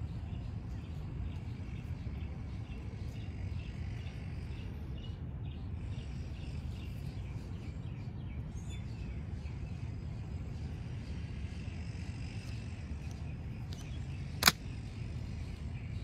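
Steady low outdoor background rumble, then near the end a single sharp metallic snap: a 1950s Latama 13-inch picklock stiletto switchblade firing its blade open and locking.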